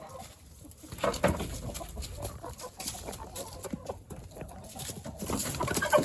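Chickens clucking and squawking amid scuffling and wing flapping as a Blue Laced Red Wyandotte rooster is caught by hand. The noise starts about a second in and the squawks grow louder toward the end.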